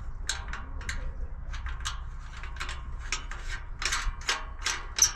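Hand tool work on metal: an irregular run of sharp metallic clicks, about three or four a second, the loudest near the end, over a steady low hum.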